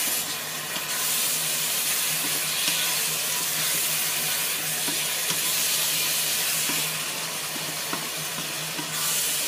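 Shrimp and minced pork sizzling in a hot pan as they are stir-fried with a wooden spatula, with a few light knocks of the spatula. A steady low hum runs underneath.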